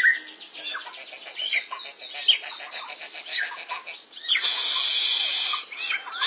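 Caged white-rumped shamas (murai batu) singing, with many quick, high, down-slurred notes repeated in rapid runs. A loud, harsh, rasping noise lasting about a second cuts in past the middle, and comes again briefly at the end.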